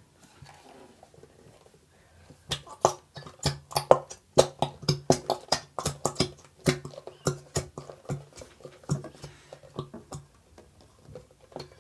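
Plastic glue bottle being squeezed and worked to force out the last of the glue: a fast, irregular run of clicks and sputters starting a couple of seconds in and dying away near the end.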